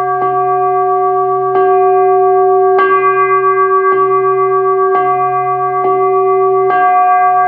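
Buddhist prayer bell struck about seven times, a second or so apart, each strike ringing on in a sustained tone, the strokes coming slightly faster toward the end. A low hum runs underneath.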